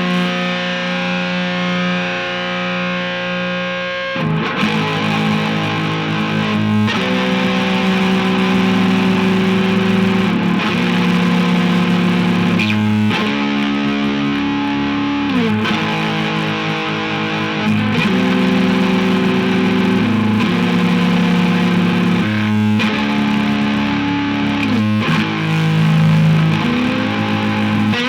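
Electric guitar through overdrive distortion playing sustained chords that change every second or two, with a few notes sliding down in pitch around the middle and again near the end.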